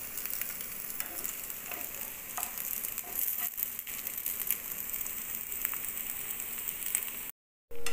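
Oil sizzling steadily in a pan as slices of steamed bottle-gourd dumpling shallow-fry over low heat with mustard seeds and sesame, with scattered small crackles. The sound cuts out for a moment near the end.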